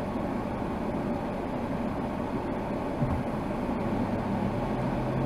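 Steady low-pitched vehicle noise from a car waiting at an intersection, picked up by a dashcam inside the car, with cross traffic passing. There is a brief low thump about three seconds in.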